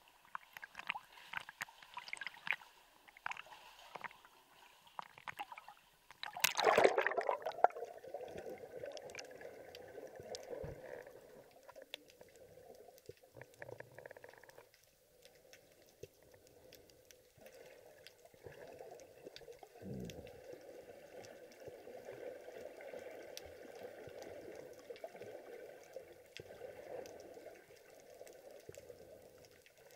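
Light splashing of a swimmer at the water's surface, then one loud splash as the swimmer and camera duck under, followed by muffled, steady underwater noise with a single dull thump about two-thirds of the way in.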